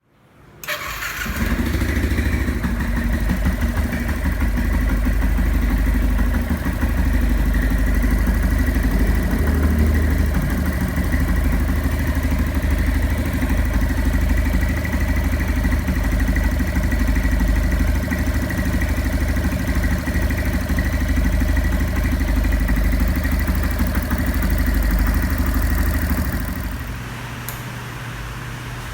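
Yamaha Fazer 150 air-cooled single-cylinder engine starting and running at a fast idle, with a steady high whine over the exhaust note, then dropping to a lower, quieter idle near the end.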